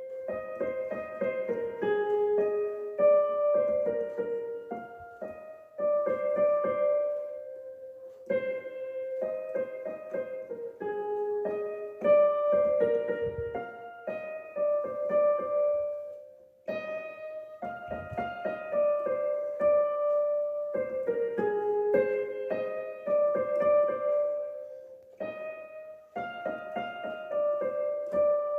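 Piano music: a melody of clear single notes, its phrase repeating about every eight seconds.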